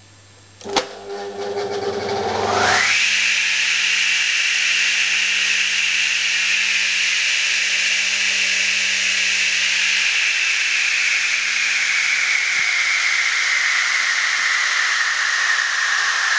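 Single-phase DeWalt radial arm saw motor started by bridging the contacts inside its switch box, bypassing the faulty power switch: a sharp click, then the motor spins up with a quickly rising whine. It settles into a loud, steady whirring hiss whose whine slowly sinks in pitch, which shows that the motor itself runs.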